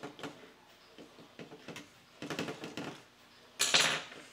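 Small clicks and rattles of hard plastic toy-robot parts being handled and unscrewed with a small screwdriver, with a quick run of clicks a little past two seconds in and a louder short rasp near the end.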